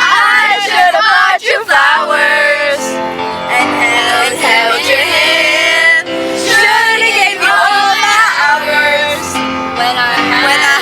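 Pop love song playing, a voice singing over it.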